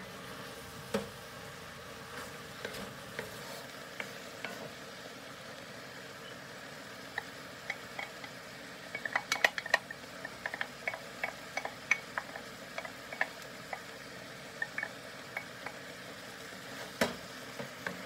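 Vegetables and shredded chicken sizzling steadily in a hot cast-iron skillet while a wooden spatula stirs and clicks against the pan. The clicks come scattered at first, in a quick flurry around the middle, and once sharply near the end.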